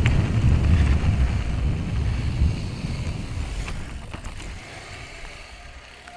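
Wind buffeting an action-camera microphone and mountain bike tyres rumbling over a gravel trail at speed, with a couple of sharp clicks about four seconds in. The rumble dies down steadily over the second half.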